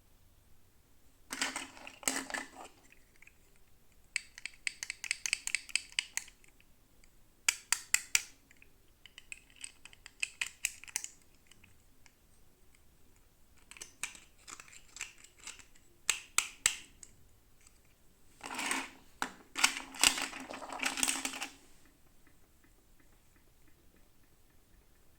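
Plastic toy packaging being opened by hand: about seven short bursts of rapid clicking and crinkling, with quiet gaps between them.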